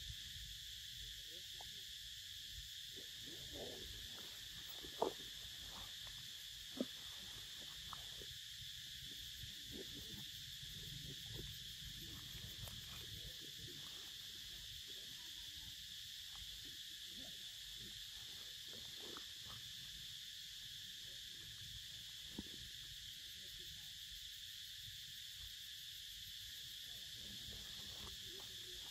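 Steady high drone of forest insects, with soft rustling and a few sharp clicks from a young monkey handling a mango in dry leaves; the loudest clicks come about five and seven seconds in.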